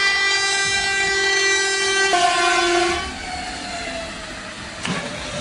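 Train horn sounding a long, loud multi-tone chord whose pitch drops suddenly about two seconds in. It cuts off about a second later, leaving the noise of the train rolling by, with a sharp click near the end.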